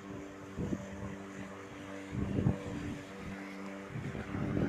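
1800-watt electric lawn mower motor running steadily with a constant hum. Wind buffets the microphone in gusts about half a second in, around two and a half seconds in (the loudest), and near the end.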